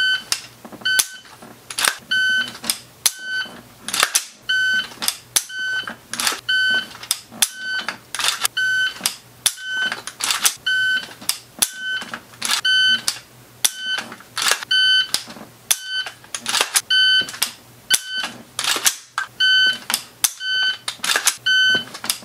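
Electronic shot timer beeping over and over, short single-pitched beeps roughly a second apart or less, as start and par-time signals for repeated dry-fire reps. Between the beeps come sharp clicks and clacks of an AR-15 rifle's trigger being dry-fired and its action being handled to reset it.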